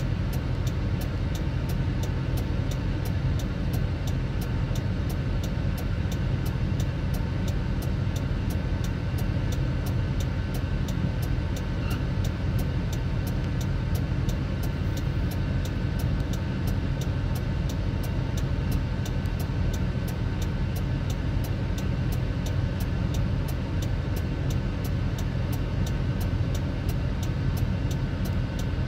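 Semi-truck engine idling with a steady low rumble and a faint, regular ticking about twice a second.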